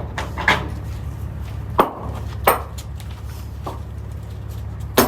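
Sharp knocks and thumps inside an empty semi-trailer, five of them spread about a second apart, the loudest near two seconds and at the very end, over a steady low hum.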